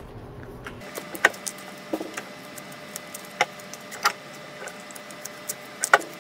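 Scattered clicks and light knocks at irregular intervals as a lead-acid battery pack and its metal bracket are pried and lifted loose inside a UPS case, the adhesive foam pad that holds them being torn free.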